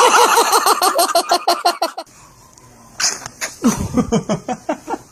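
Rapid rhythmic laughing, about eight short pulses a second, that cuts off suddenly about two seconds in; about three seconds in, a baby's sneeze, followed by a short run of lower laughter falling in pitch.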